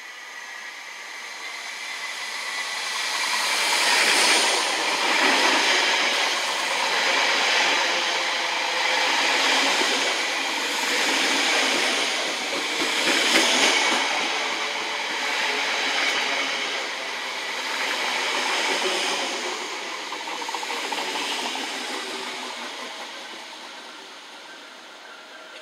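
TfL Rail Class 315 electric multiple unit running past close by. The rumble and hiss of its wheels on the rails builds over the first few seconds, swells and eases every couple of seconds as it goes by, then fades away near the end.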